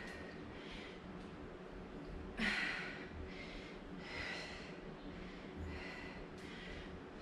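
A woman breathing hard from exertion during squats: a run of short, sharp exhalations less than a second apart, one louder about two and a half seconds in.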